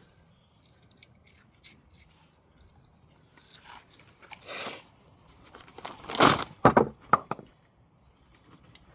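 Plastic casing and parts of a cheap hairdryer being broken apart: scattered small clicks and scrapes, a short rasping crunch about halfway, then a quick run of three or four loud cracks and snaps about two thirds through.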